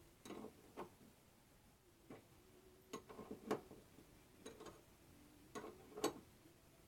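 Faint, irregular metallic clicks and taps in small clusters, with a brief ring after some of them: a 5/8 wrench working a threaded fitting as a fuel pressure gauge is tightened in.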